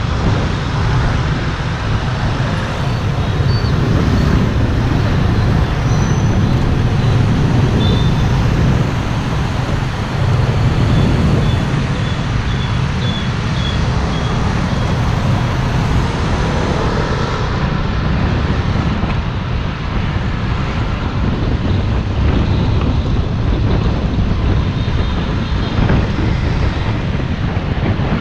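Steady road traffic noise: a continuous low vehicle rumble under a broad hiss.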